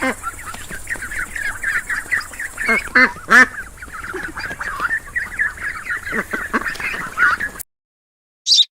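A flock of fowl calling together in a dense, overlapping chorus of short calls, with a few louder calls about three seconds in. The chorus cuts off abruptly about seven and a half seconds in, and a brief high chirp follows near the end.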